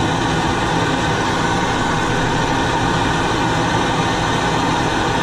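Hand-held MAP gas torch burning steadily with a constant hiss, its flame heating a rust-seized pivot on a truck's cowl vent door to free it.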